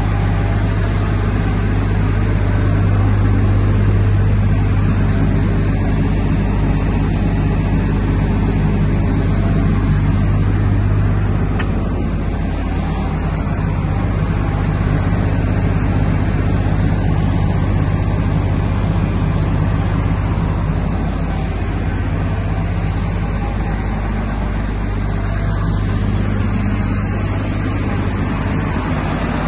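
Wirtgen W 100 F cold milling machine's diesel engine running steadily with a low, even hum.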